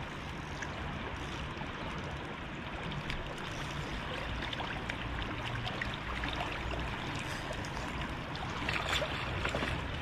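Fast river current running, a steady rush of water, with a few faint ticks near the end.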